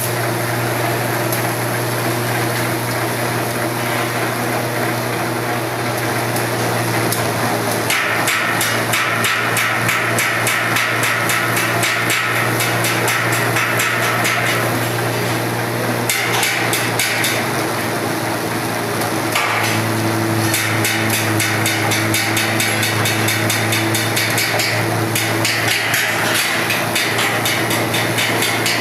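Chudekar CS 5 single-shaft waste shredder running with a steady motor hum. After the first several seconds its cutter breaks into a rapid, continuous clatter as waste is fed into the hopper, easing off briefly twice.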